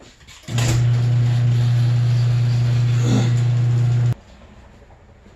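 Electric garage door opener running: a steady motor hum over the broad noise of the door travelling. It starts about half a second in and stops abruptly about three and a half seconds later.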